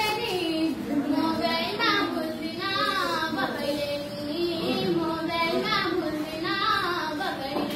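A girl's voice singing a verse of a Nepali dohori folk song, the sung back-and-forth exchange of verses, in phrases with bending, drawn-out notes.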